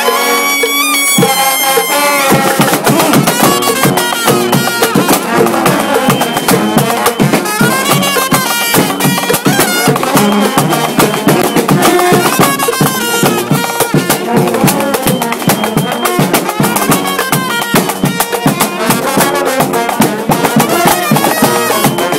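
Marching band playing live, brass and drums with a steady beat; held tones in the first second give way to the full band.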